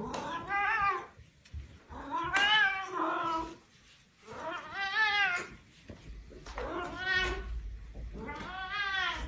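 A domestic cat meowing: five long, drawn-out meows, each rising and then falling in pitch, about every two seconds.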